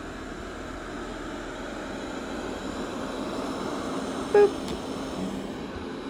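Kyvol Cybovac E30 robot vacuum running on carpet, a steady motor hum that grows louder as it comes closer. About four and a half seconds in, a short, loud pitched sound cuts in briefly.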